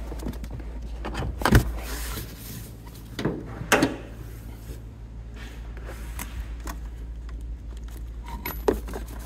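Clicks and clunks of a car's bonnet being released and opened and of its battery terminal connector being handled, over a steady low hum. There is a sharp clunk about a second and a half in, two more around four seconds in, and a click near the end.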